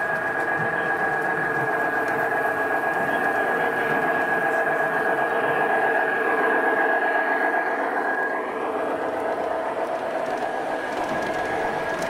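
Large-scale model diesel locomotive hauling a freight train past on garden railway track: a steady motor and gear whine over the rolling of wheels on the rails, loudest about halfway through as it passes close by.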